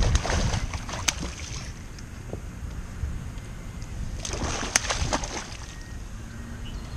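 A hooked snakehead thrashing at the water's surface beside a kayak: a bout of splashing at the start and another about four seconds in, each with a sharp knock.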